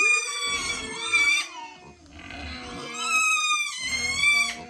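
A pig squealing: two long, high-pitched squeals, the second beginning about three seconds in.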